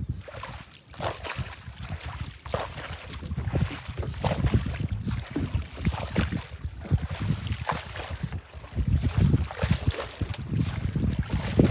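Wind rumbling on the microphone aboard a small boat on a river, with irregular knocks and splashes from water and handling.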